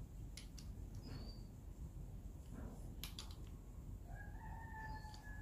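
Faint clicks of an inch-pound torque wrench and socket working on a diesel injector hold-down bolt, then a rooster crowing once, a single held call that starts about four seconds in.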